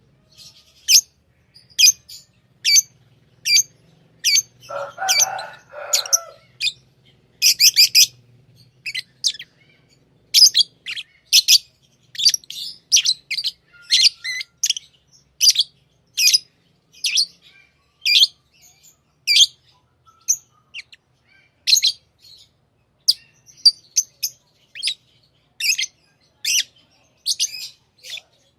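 Pet lovebirds giving short, sharp high-pitched chirps over and over, about one or two a second, with a lower, rougher call lasting a couple of seconds about five seconds in.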